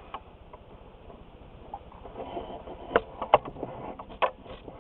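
Handling noise: a few short, sharp clicks and taps of small hard parts being handled, the loudest of them about three seconds in.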